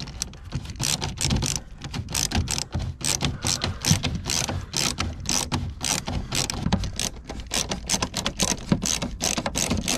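Screws being driven in by hand with a ratcheting screwdriver to fix the rear of a bilge pump's mounting. The ratchet gives fast, uneven clicks throughout.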